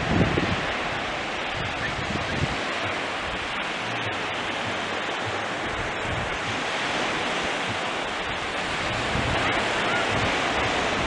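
Small waves breaking and washing onto a sandy beach: a steady surf hiss, with some wind rumble on the microphone at the start and near the end.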